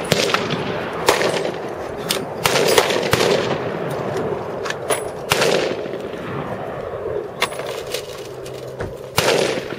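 Single gunshots from several guns on an outdoor firing line, including a handgun, one every second or two at uneven spacing, each followed by a rolling echo.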